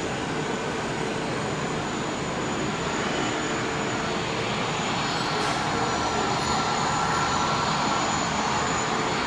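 Four jet engines of a Boeing 747 freighter on final approach to landing: a steady jet rumble that grows slightly louder as the aircraft nears, with a thin whine joining about halfway through.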